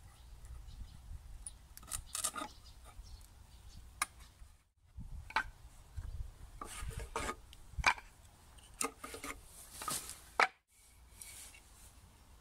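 Wooden slats being handled and fitted on a wooden jig: irregular light wooden knocks, clatter and scraping or rubbing.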